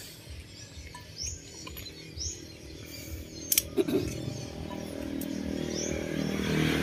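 Pruning shears snip twice sharply about three and a half seconds in, cutting berry stems, while a bird gives short high chirps every second or two. A low rumble builds toward the end.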